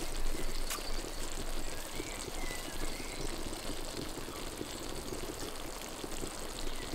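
Thick BBQ bean and brisket stew bubbling in a cast iron Dutch oven over a wood fire, a steady run of small pops and gurgles as it simmers toward done.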